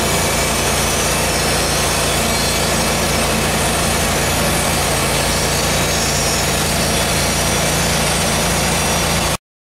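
Hudson Oscar portable band sawmill running under engine power with the blade cutting through wood, a steady engine hum under the cutting noise. The sound cuts off abruptly near the end.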